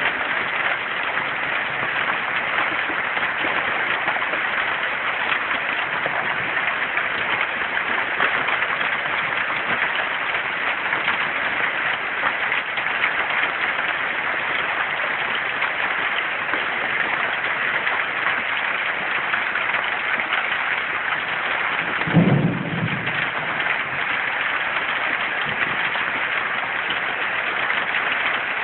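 Heavy thunderstorm rain pouring down as a steady, even hiss. About three-quarters of the way through there is one brief low thump.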